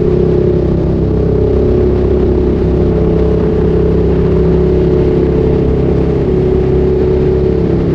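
Ducati Streetfighter 848's L-twin engine through a Termignoni exhaust, running at steady, nearly unchanging revs on the move.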